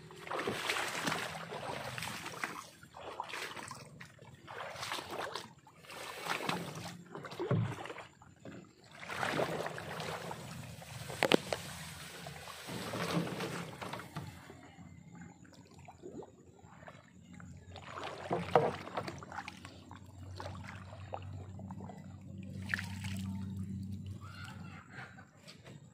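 Water sloshing and splashing in uneven surges every second or two, as the water around floating water hyacinth is disturbed.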